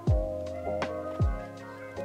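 Instrumental background music: a relaxed beat with a deep kick drum, crisp snare strokes and held keyboard chords.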